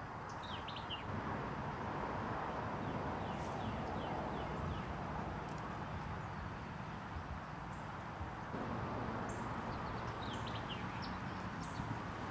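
Steady low rumble of wind on the microphone, with short high bird chirps coming in a few times, about half a second in, around three to five seconds in and again near the end.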